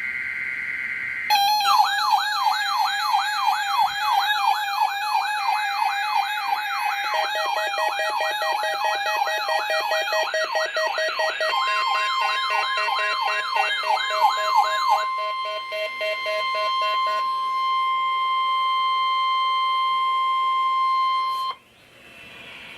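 Weather alert radio receivers sounding warbling siren alarms, several overlapping, set off by the SAME data header of a NOAA Weather Radio weekly test. About ten seconds in, the steady 1050 Hz NOAA warning alarm tone joins and holds until it cuts off sharply near the end.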